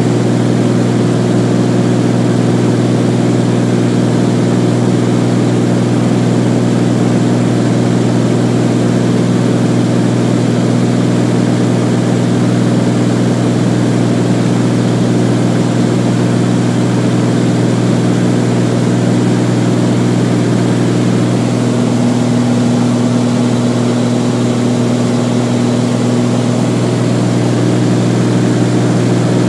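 Beechcraft Bonanza's piston engine and propeller droning steadily in cruise, heard inside the cabin. A little past two-thirds of the way through, the drone's tone shifts slightly.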